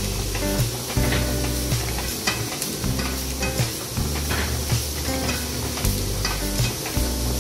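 Chandler & Price platen letterpress running through its impression cycles: repeated clanks and clicks of the platen and linkage about every second or two, over a steady mechanical hiss.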